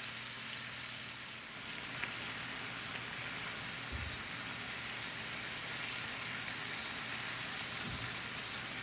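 Chicken shashlik skewers sizzling steadily as they fry in cooking oil in a pan over low heat, with a few faint pops.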